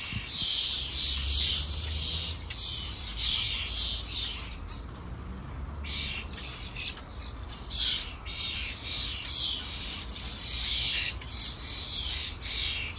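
Garden birds chirping again and again in short bursts, with a low rumble underneath.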